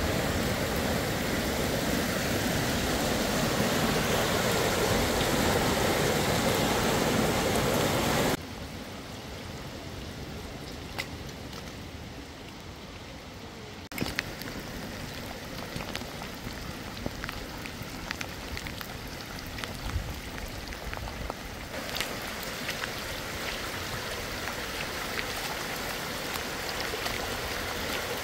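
Muddy floodwater rushing over a paved lane in rain, a steady wash of water noise with scattered raindrop ticks. It is loud at first, drops abruptly about eight seconds in, then steps back up twice.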